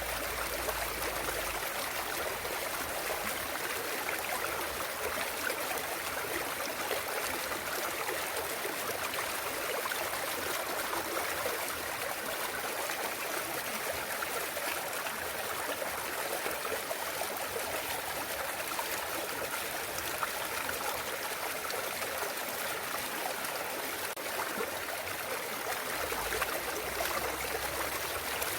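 Clear mountain stream flowing and trickling over rocks, a steady even rush of water.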